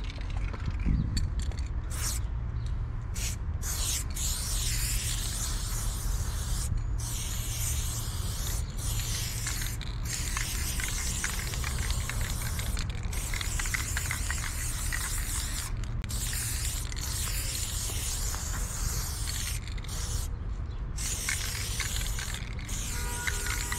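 Aerosol spray paint cans hissing as paint is sprayed onto a concrete block wall, in long continuous strokes broken by brief pauses between strokes.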